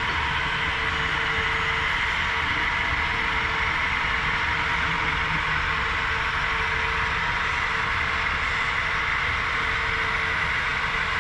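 HO scale model diesel locomotives running, their LokSound sound decoders playing a steady diesel engine sound through the models' small speakers.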